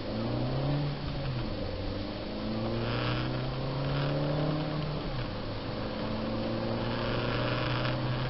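Car engine accelerating through the gears, heard from inside the cabin: its pitch rises, drops at a gear change about a second in, climbs and holds, drops again at a second gear change about five seconds in, then runs steadily.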